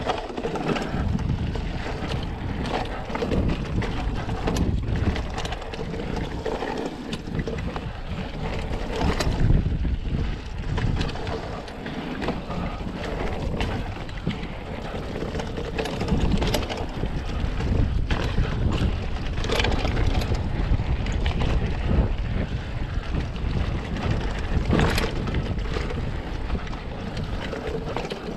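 Wind buffeting the microphone over the steady rumble of knobby tyres rolling on a dirt trail as a Polygon Premium hardtail mountain bike is ridden at speed, with frequent sharp clicks, knocks and rattles from the bike over bumps and roots.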